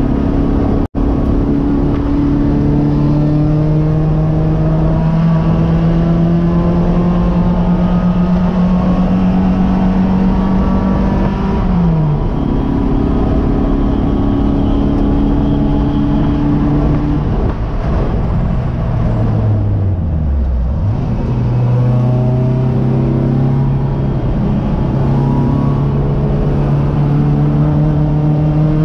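Race car engine heard from inside the cockpit, pulling under load with revs slowly climbing. The revs fall sharply a little before halfway, then sink low again about two-thirds through before it accelerates again. The audio cuts out for an instant about a second in.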